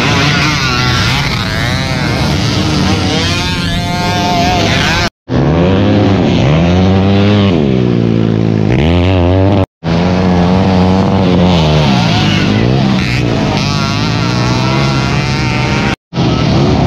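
Motocross bike engines at full revs, their pitch climbing and falling repeatedly, with more than one engine heard at once at times. The sound drops out abruptly for a moment three times.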